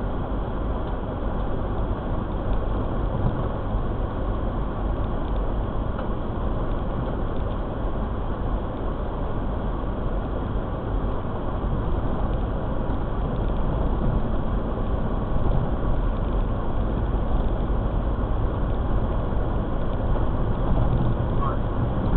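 Steady rumble of road and engine noise inside a moving car.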